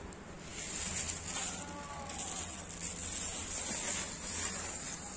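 Cat chewing dry kibble: irregular crunches over a steady outdoor hiss.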